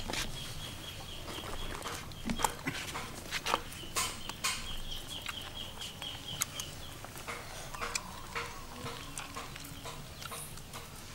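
Chickens clucking in the background, with scattered sharp clicks and taps as a knife cuts into and prises open a cooked turtle's shell. A thin, steady high trill runs through the first several seconds, then stops.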